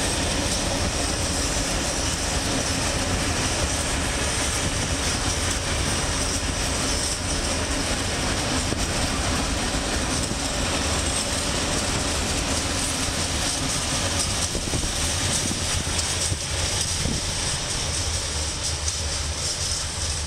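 Freight train of covered hopper wagons rolling past, its wheels giving a steady rumble on the rails that eases off slightly near the end.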